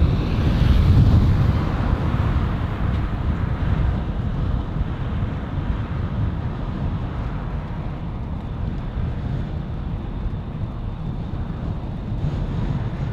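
Wind rumbling on a handlebar-mounted microphone's furry windscreen while a bicycle rolls along a tarmac road, with steady tyre noise. It is loudest in the first couple of seconds, then settles to a steady level.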